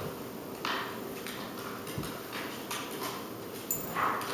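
Broom bristles sweeping a hardwood floor in a series of short, scratchy strokes, with the last ones the loudest.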